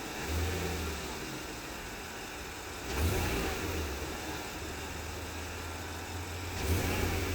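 Porsche Cayenne S engine running, with three brief surges in level, at about half a second, three seconds and seven seconds in, heard as a noise the owner cannot identify.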